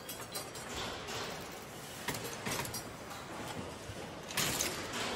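Assembly-line factory noise: a steady hum with scattered metallic clicks and clatters from parts and fixtures being handled, the loudest rattle about four and a half seconds in.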